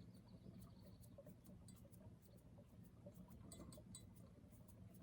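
Near silence: a faint steady low hum with scattered light ticks.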